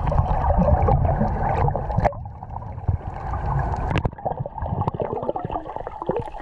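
Water heard underwater through an action camera's housing: a muffled rushing and bubbling with scattered sharp clicks.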